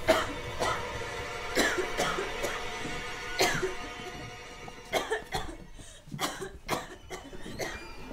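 Background music with steady held tones, broken by a run of sharp, short hits that crowd together a little past the middle.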